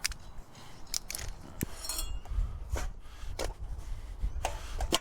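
Scrap metal pieces knocking and clinking together as they are rummaged through and handled, about eight separate knocks, one around two seconds in ringing briefly like struck metal.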